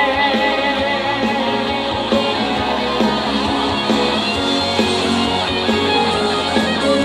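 Live band music in an instrumental break between sung sections of a pop song, with guitar to the fore, played loudly through a concert PA.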